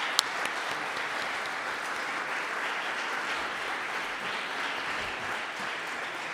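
Audience applauding steadily, with one sharper, louder clap just after it begins.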